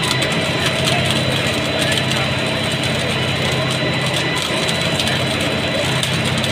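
Mobile flash butt rail welder in its flashing stage: a steady crackling of sparks arcing at the rail joint over the steady hum of the machine's engine.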